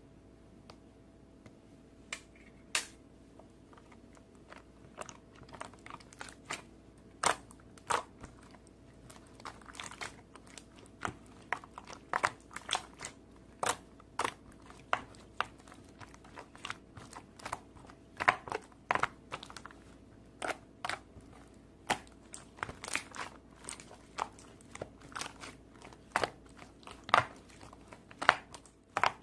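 Slime being squeezed and pressed by hand, giving a run of sharp, irregular pops and crackles. They are sparse at first and come thick and fast after the first several seconds.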